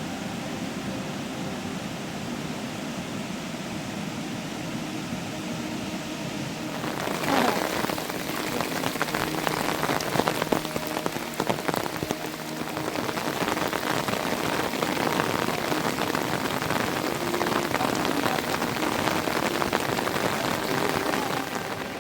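Heavy monsoon rain, a steady hiss that grows louder about seven seconds in, where many close, sharp drop impacts on a surface join it.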